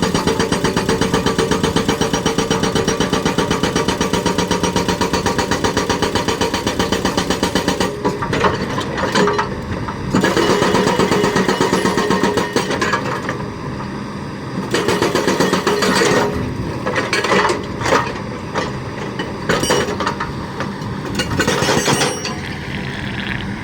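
Hydraulic breaker on a Kobelco excavator hammering rapidly and steadily. About eight seconds in, the hammering turns into shorter bursts broken by pauses.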